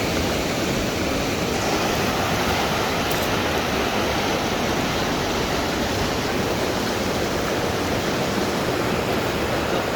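Fast-flowing river water rushing steadily, an even, unbroken wash of noise.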